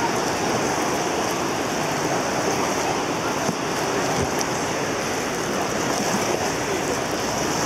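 River water rushing steadily around an inflatable raft on a fast-flowing stretch of river.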